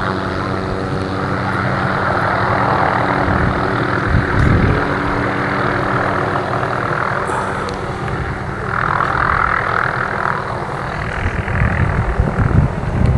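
A steady engine drone, with wind buffeting the microphone now and then.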